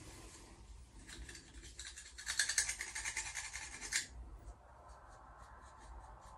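Rapid scratchy rubbing or scraping strokes, loudest from about two to four seconds in, then stopping suddenly.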